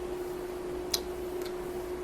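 Room tone with a steady hum and a single light click about a second in.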